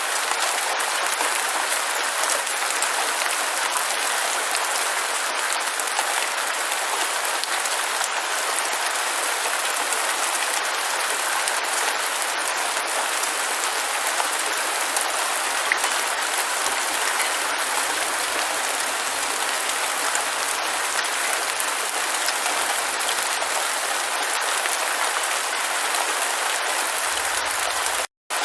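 Rain falling steadily as a dense, even hiss, which cuts out for a split second near the end.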